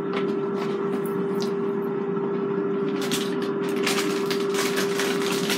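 Air fryer fan running with a steady hum. From about three seconds in, a plastic food bag crinkles as it is picked up and handled.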